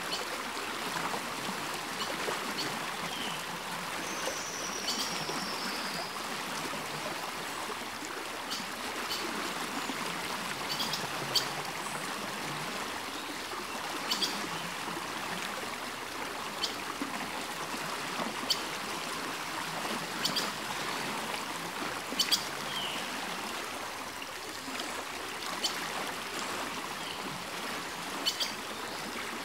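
Small creek running over stones, a steady rush of water, with scattered sharp clicks and a brief falling whistle about four seconds in.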